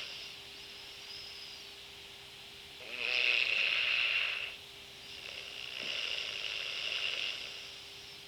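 A person snoring: a loud, rasping breath with a rattle at its start about three seconds in, followed by a longer, softer breath. A faint steady hum runs underneath.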